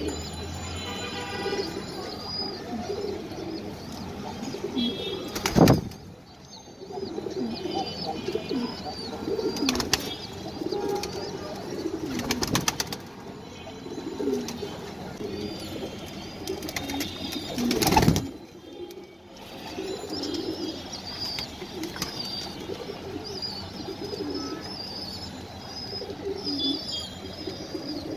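Domestic pigeons cooing over and over while feeding on grain in a loft, with faint higher chirps. Two loud sharp knocks, about six seconds in and again near eighteen seconds.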